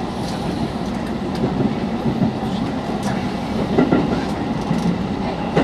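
313 series electric train running along the track, heard from inside the passenger car behind the cab: a steady rumble of wheels on rail, with occasional clicks as the wheels pass over rail joints and points.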